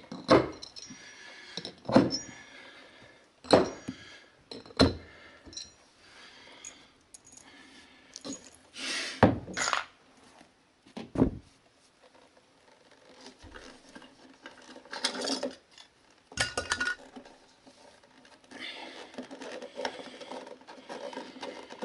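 Hammer working out the nails that pinned a cut carpet section to the floor: sharp metal clinks and knocks, four in the first five seconds. Scattered knocks and carpet-handling rustles follow as the cut piece is lifted out.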